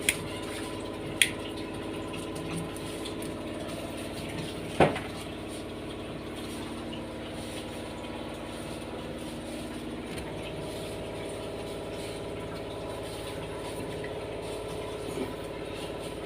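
Washing machine's electric motor running with a steady hum, with a few sharp clicks, the loudest about five seconds in.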